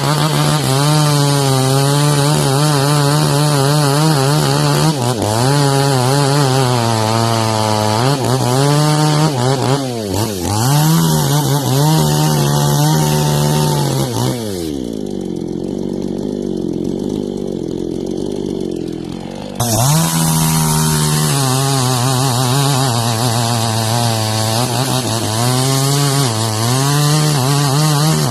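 Two-stroke chainsaw cutting mangosteen wood, its engine pitch wavering up and down under load. About halfway through it drops to idle for some five seconds, then snaps back to full throttle as cutting resumes.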